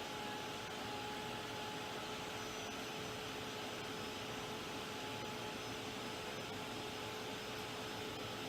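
Handheld craft heat gun running steadily, a blowing rush with a steady motor whine, drying freshly brushed-on crackle paste primer.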